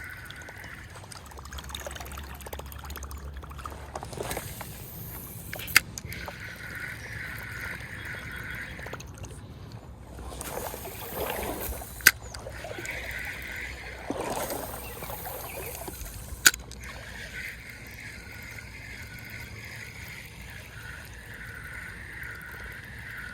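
Fishing rod casting and a reel retrieving a Whopper Plopper topwater lure, three times over: each time a short swish, then a sharp click, then several seconds of steady rhythmic reel cranking.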